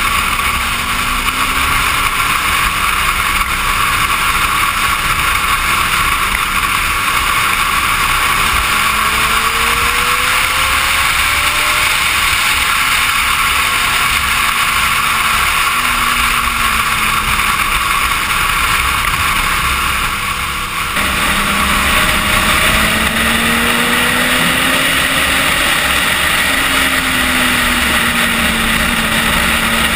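Suzuki GSX-R sportbike engine heard from an onboard camera at highway speed, its pitch slowly rising and falling, under a steady rush of wind. The sound changes abruptly about two-thirds of the way through.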